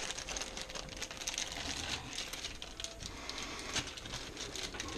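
Many small, irregular plastic clicks and ticks mixed with a plastic bag crinkling, as gas stove knobs are handled and pushed onto their valve stems.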